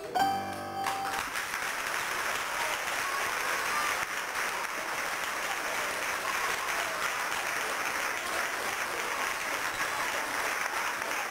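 Audience applauding steadily, beginning as the last notes of a piano accompaniment end about a second in.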